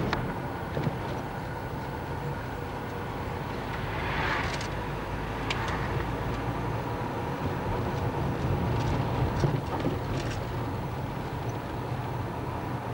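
Car driving, heard from inside the cabin: a steady low engine and tyre rumble, with a brief swell of noise about four seconds in and a few light clicks and rattles.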